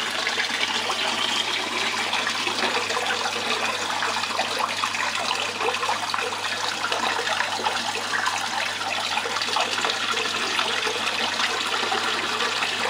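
Water running steadily through a DIY miller table, flowing in a thin sheet over the sloped rubber mat and washing black sand concentrate downslope toward the gold catch hole.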